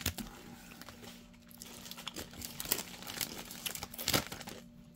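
Foil-lined potato chip bags crinkling and rustling as they are handled and shuffled about, an irregular run of sharp crackles.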